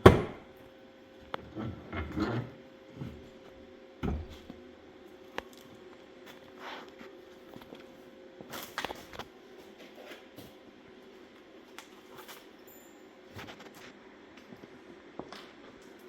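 Scattered knocks, clanks and clicks of tools and metal parts being handled, with a sharp knock at the start and a clatter of knocks soon after, over a steady low hum.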